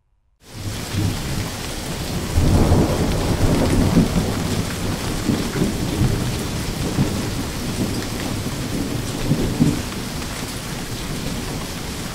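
Tropical-cyclone wind and driving rain blowing in heavy gusts, with a deep rumble of wind buffeting the microphone. It comes in about half a second in and swells louder about two seconds later.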